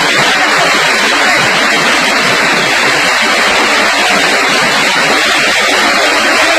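Hail and heavy rain pelting down: a loud, steady, dense clatter of countless small impacts.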